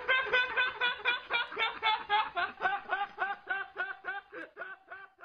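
A man laughing in a long unbroken run of short pulses, about four a second, getting quieter toward the end.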